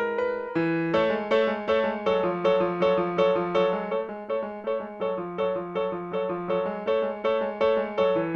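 Grand piano played solo: a steady run of evenly repeated notes, about three a second, over a sustained bass that moves to a new note about half a second in.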